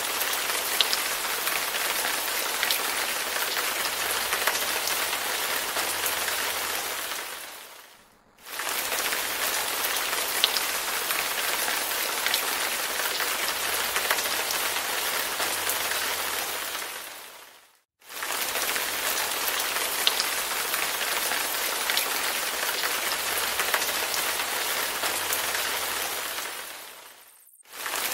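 Recorded rain, a steady patter with scattered individual drops. It is a short loop that fades out to a brief silence and comes back about every nine and a half seconds, three times here.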